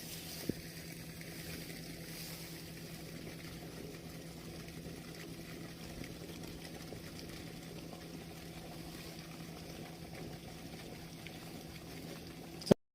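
Steady rush of water being let out through a small seaside sluice gate, with a low, even hum underneath. A sharp click near the end.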